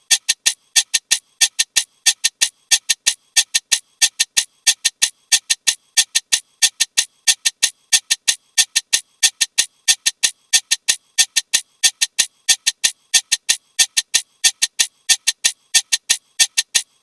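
A sound effect of short, sharp, high-pitched clicks repeating rapidly and evenly, about five a second.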